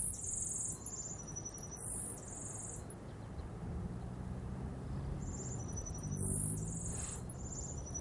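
Insects chirping in short, high, repeated bursts, over a steady low background.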